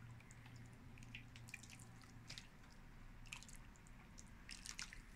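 Faint dripping and light clicks of liquid and utensils as soup is dished out of the pot, over a low steady hum.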